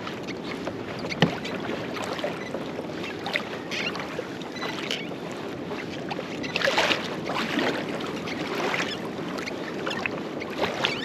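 Steady water noise around a small fishing boat, with a sharp knock about a second in and a louder rush of water about seven seconds in.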